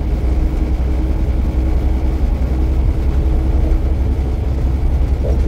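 Semi truck's diesel engine and road noise heard from inside the cab while cruising at highway speed: a steady, low drone.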